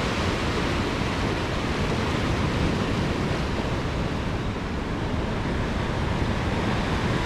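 Steady rush of rough surf washing against the rock wall, with wind noise on the microphone.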